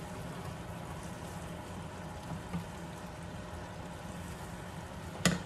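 Chicken curry simmering in a metal pan while a wooden spoon stirs it, over a steady low hum. A few soft clicks come midway, and a single sharp knock near the end is the loudest sound.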